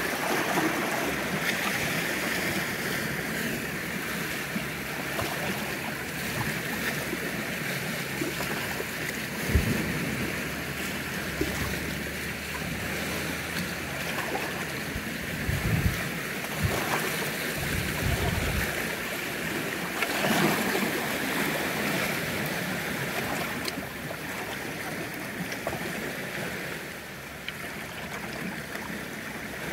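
Small waves washing on the shore with steady wind, the wind knocking against the microphone in a few low thumps around the middle.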